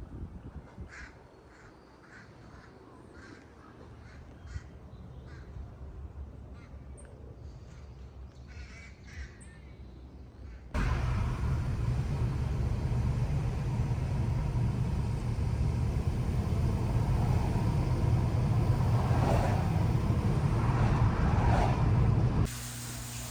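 A run of short, separate calls over a quiet background, then about eleven seconds in a sudden cut to loud, steady helicopter engine and rotor noise.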